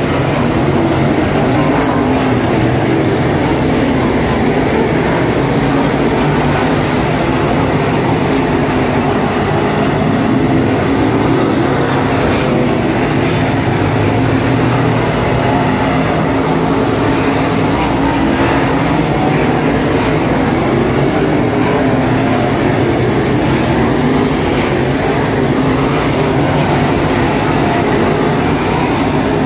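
Dirt Super Late Model race cars' V8 engines running at racing speed around the track, a loud, steady engine drone without let-up.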